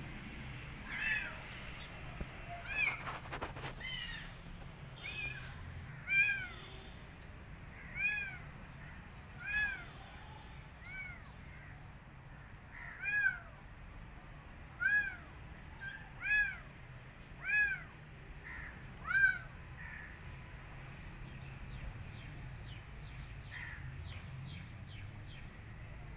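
A kitten meowing over and over: short, high mews that rise and fall in pitch, about one every one to two seconds, with the loudest ones in the middle and a pause of a few seconds near the end.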